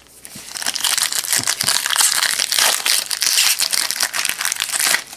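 Foil trading-card pack wrapper crinkling loudly as it is torn open and crumpled by hand, a dense crackle lasting about four and a half seconds.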